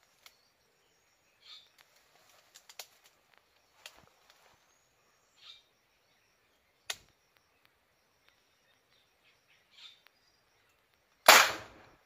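Homemade PVC marble gun firing once near the end: a single loud, sharp shot that tails off over about half a second.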